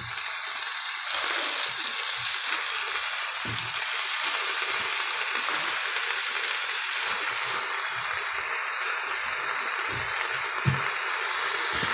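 Spinach leaves and onions sizzling steadily in hot oil in a frying pan as the fresh leaves start to wilt, with a few soft knocks.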